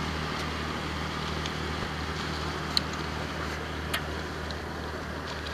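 Steady wind and water noise around a canoe as it rocks through the waves of a passing motorboat's wake, with a low, even hum underneath and a couple of faint ticks.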